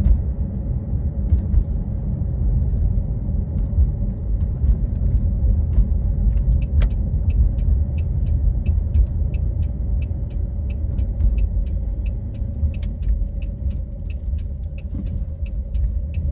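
A 2002 Chevy Blazer's 4.3-litre V6 running steadily after a new distributor cap got it started. From about six seconds in, a light, even ticking joins it, about three ticks a second.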